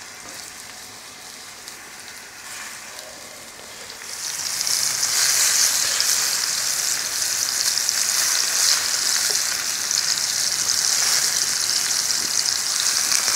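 Raw meatballs frying in hot oil in a cast-iron pan, a steady sizzle that turns much louder about four seconds in as the pan fills.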